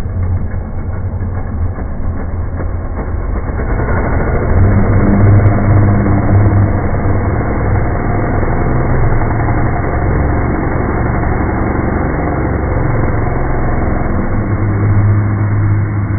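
Chainsaw running steadily, getting louder about four seconds in and surging again near the end.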